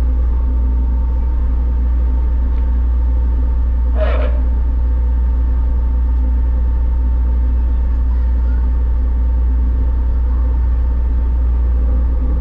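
Steady low drone of a 398-ton car ferry's engines while underway, with several steady tones running through it. A brief, higher sound cuts in about four seconds in.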